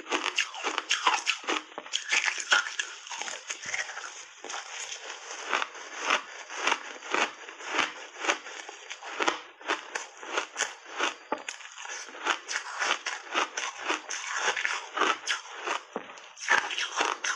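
Ice crunching as a block of purple-tinted ice coated in milk and cream is bitten and chewed right at a lapel microphone: a dense run of sharp crunches, several a second.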